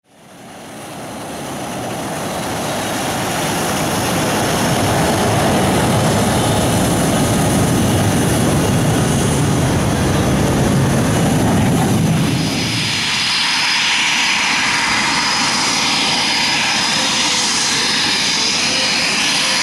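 Jet engines of BAE Hawk Mk 65 trainers running, Rolls-Royce Turbomeca Adour turbofans: a loud, steady jet rumble that fades in. About two-thirds in it changes abruptly to a thinner, higher jet whine.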